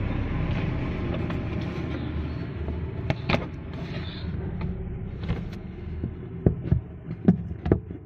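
Hands handling and fitting the rubber drain seal in a plastic washing-machine tub: several sharp knocks and clicks in the second half, over a steady low rumble that fades after the first few seconds.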